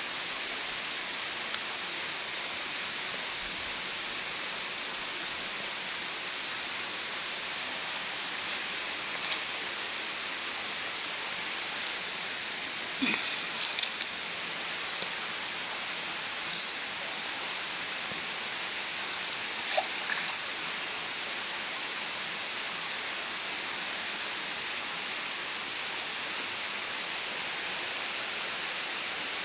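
Steady rush of running water, with a few short sharp ticks and chirps over it, bunched about a third and two thirds of the way in.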